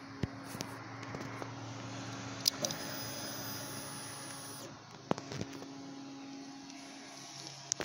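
Honda RC51 SP2 ignition switched on with a sharp click about two and a half seconds in. A steady high whine follows for about two seconds as the fuel pump primes, over a steady low hum, and a couple of lighter clicks come later.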